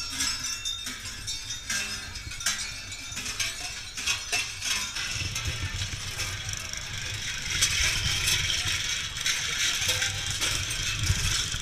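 Cowbells worn by Krampus and Perchten clanging and jangling as the figures move, a dense ringing clatter with a low rumble underneath that grows stronger about halfway through.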